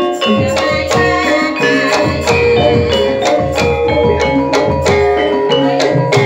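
Live Javanese gamelan ensemble playing dance music: metal-keyed mallet instruments ringing a busy melody over a steady beat of drum strokes, about four a second.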